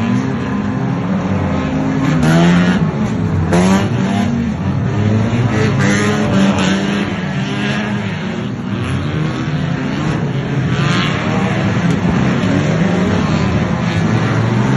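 Several 1500cc banger racing cars' engines revving hard and going past, overlapping, their pitch rising and falling as they accelerate and lift off.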